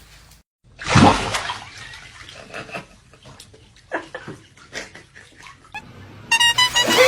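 Water splashing and sloshing, loudest about a second in, then in scattered short splashes. Near the end, a loud stretch of steady pitched tones.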